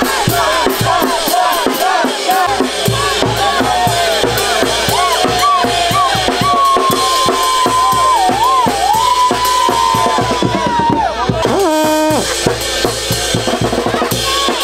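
Live Mexican banda brass band playing a steady beat on bass drum, snare and cymbals under a sousaphone, with a long held high note in the middle of the passage.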